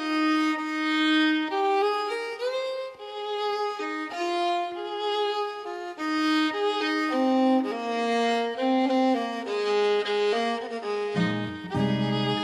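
Background music: a slow violin melody of held notes, joined by lower notes about eleven seconds in.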